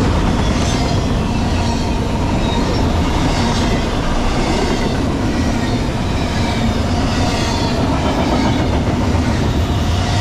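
Double-stack intermodal well cars of a freight train rolling past at speed: a loud, steady rumble of steel wheels on rail with a clickety-clack that comes round about every second and a quarter, over a thin steady whine.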